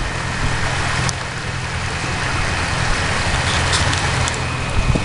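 Boat motor running steadily: a low engine hum under a rushing hiss of water and wind.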